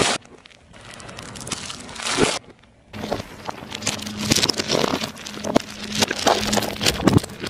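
Car tyre crushing objects on asphalt. About two and a half seconds of crackling as a plastic-wrapped item is pressed under the tyre are followed, after a short break, by a longer stretch of dense crackling and popping from a pile of small glassy balls under the wheel.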